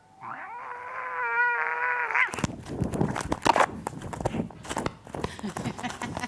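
A cat's drawn-out, wavering yowl for about two seconds, then suddenly a louder cat fight of screeches and scuffling.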